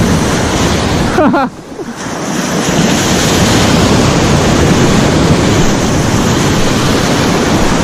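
Strong wind buffeting the microphone over breaking sea surf, a loud steady rush. About a second and a half in the noise drops suddenly, then builds back over the next second or so; a brief voice is heard just before the drop.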